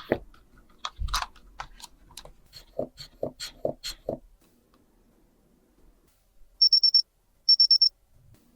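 Plastic toy clicks and taps for about four seconds, then two short bursts of rapid, high-pitched electronic beeps from a toy blood pressure monitor.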